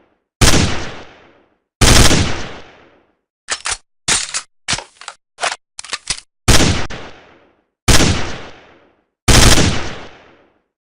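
Five loud gunshots from a rifle or shotgun, each followed by an echoing tail of about a second and a half. Between the second and third shots comes a quick run of about six short, sharp mechanical clacks.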